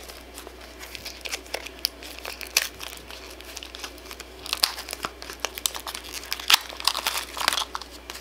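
Clear plastic wrapper crinkling and tearing as it is pulled off a plastic toy blind-bag pack. It is a run of sharp crackles that gets busier and louder about halfway through.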